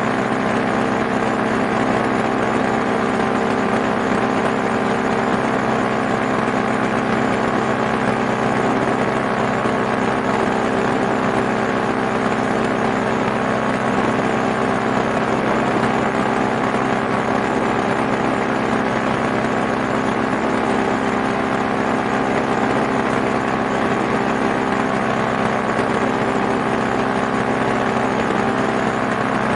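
Small engine running steadily at one constant speed.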